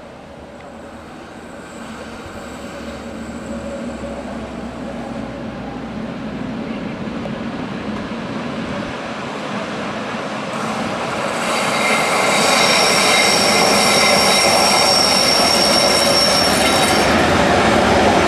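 Rhaetian Railway Ge 4/4 I electric locomotive No. 604 arriving with its train, its running growing steadily louder as it nears. From about eleven seconds in, its wheels squeal high and steady for about six seconds.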